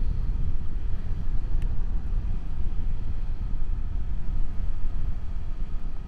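Steady wind and road rush, mostly a low rumble, heard through a lavalier mic inside a closed-visor motorcycle helmet while riding a KTM 390 Adventure.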